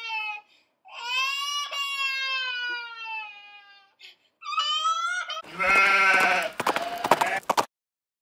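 Newborn baby crying in high wails that fall in pitch: a long wail, then a shorter one. About five and a half seconds in, a louder, rough, lower-pitched voice cuts in for about two seconds and stops abruptly.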